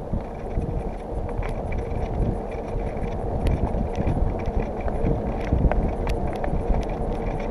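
Bicycle towing a Burley Coho trailer rolling along pavement: a steady rumble of tyres and wind on the microphone, growing slightly louder, with scattered sharp clicks and rattles.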